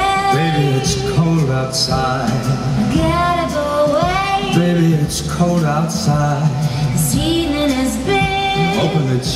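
Show soundtrack from the fountain show's sound system: a woman singing a song with held notes over instrumental backing.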